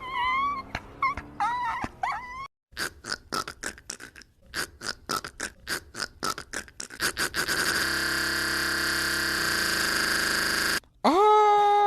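A man making strange non-speech vocal noises. First come short squeaky whimper-like glides, then a run of rapid clicks about four a second, then a long steady buzzing drone. Near the end a wail rises and is held.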